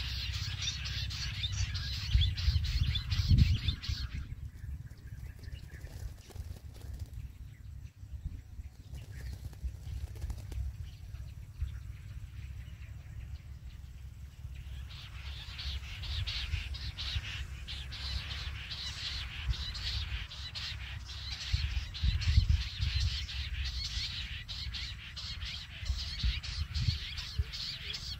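Jungle bush quail calling: a dense, rapid chattering that stops about four seconds in and comes back after roughly ten seconds of lull, carrying on to the end.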